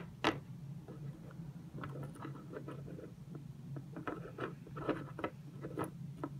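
Plastic toy animal figure tapped along a hard tabletop to make it walk: a click, then a run of light, irregular little taps. A steady low hum lies underneath.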